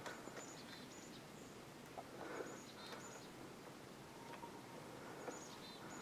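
A pileated woodpecker pecking at a tree trunk: a few scattered, separate knocks rather than a drum roll, over faint outdoor hiss. Several short, thin, high chirps from small birds come and go.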